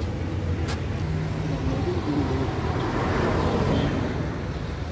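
Road traffic: a steady low engine hum from vehicles, with one swelling past about three seconds in.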